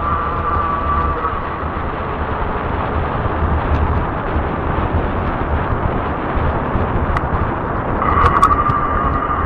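Fat-tire e-bike riding on asphalt: a steady rush of wind on the microphone and tire noise, with a pulsing low rumble. The e-bike's electric motor whines at a steady high pitch for the first second or so, drops out while the bike coasts, then comes back with a few sharp clicks about eight seconds in.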